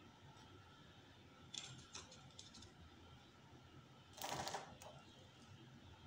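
Fischer's lovebird moving in its cage after a bath: a few faint clicks, then a brief rustle of feathers about four seconds in, lasting half a second.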